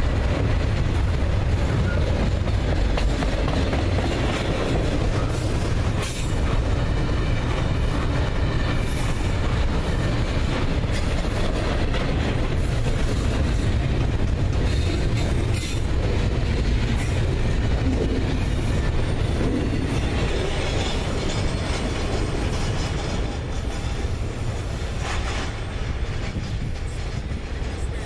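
Doublestack intermodal freight cars rolling past at about 25 mph: a steady, loud noise of steel wheels on rail that eases off near the end as the last cars go by.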